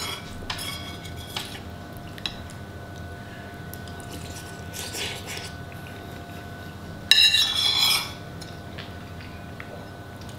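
Metal spoon scraping and clinking against a soup bowl as soup is scooped up, in a few short bursts, the loudest a scrape of about a second some seven seconds in.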